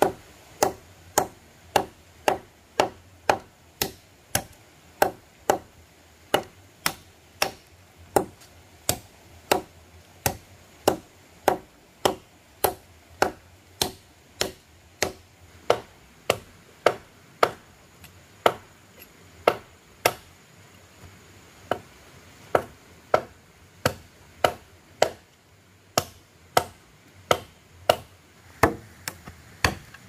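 A blade chopping wood in steady, even strokes, a little under two a second, with a brief pause about two-thirds of the way through.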